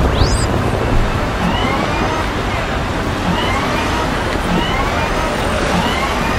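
Busy city street ambience: steady road-traffic noise, with a short rising wail that repeats about once a second over the din.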